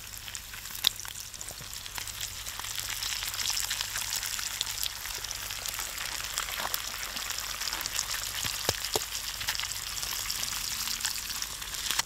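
Bacon sizzling over a wood fire: a steady frying hiss with scattered sharp pops and crackles.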